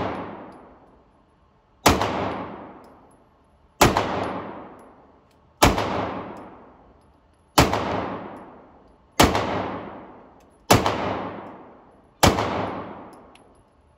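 Seven pistol shots fired at a slow, steady pace, about one every one and a half to two seconds. Each sharp crack is followed by a long echo that fades away in the indoor range.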